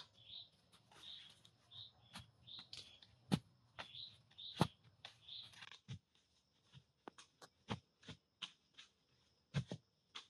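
A bird calling over and over in short chirps, about one every ¾ second, through the first half. From about a third of the way in come sharp wooden knocks and taps of poles being handled: the two loudest fall about a third and halfway in, and scattered ones follow to the end.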